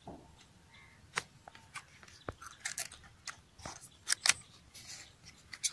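Small paperboard retail box being opened by hand: scattered crinkles, scrapes and sharp clicks as the flaps and tabs are worked loose, loudest about four seconds in.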